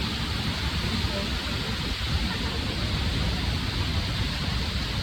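Waterfall's falling water making a steady, unbroken rushing noise, heavy in the low end.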